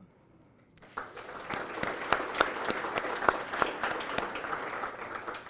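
Audience applauding, starting about a second in after a brief hush.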